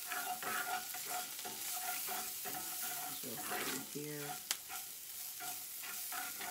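Chopped onions and carrots sizzling in oil in a cast iron skillet, stirred and scraped around the pan with a spatula in repeated strokes. A single sharp click about four and a half seconds in.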